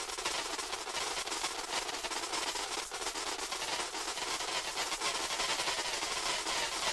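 Granular 'grain cloud' from the grainstretch~ external in Max/MSP: a drum loop frozen at zero playback speed, with many overlapping short grains at random positions blending into a steady, dense, hiss-like texture full of tiny clicks.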